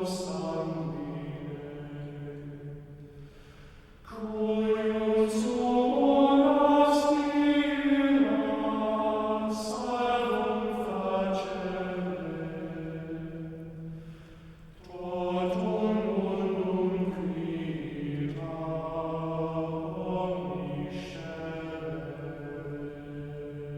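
Sung liturgical chant: voices holding long, slowly moving phrases, with two short pauses for breath, about four seconds in and again near fifteen seconds.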